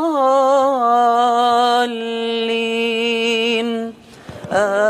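Male voice chanting Quranic recitation in the melodic tajweed style. It opens with a few wavering ornamental turns, then holds one long steady note for about three seconds. There is a short break about four seconds in before the voice comes back.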